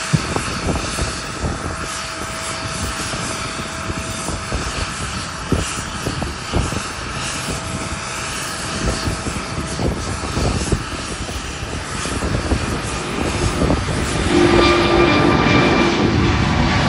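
Airbus A380's four Rolls-Royce Trent 900 turbofans at takeoff power: a loud, crackling jet rumble through the takeoff roll and liftoff. It grows louder near the end, with a whining fan tone over the rumble as the aircraft climbs out close overhead.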